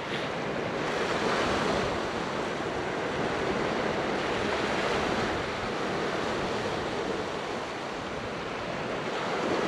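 Sea waves washing onto the beach: a steady rush that swells and eases a few times, with some wind on the microphone.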